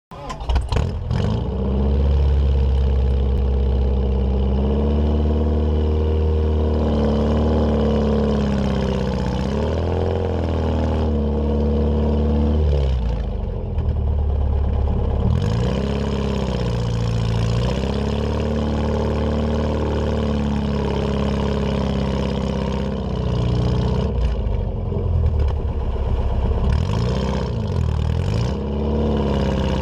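Subaru EA81 flat-four engine with dual straight pipes, working under load as it tries to tow a stuck vehicle out of sand. Its revs rise and fall again and again, with a quick run of sharp blips near the end.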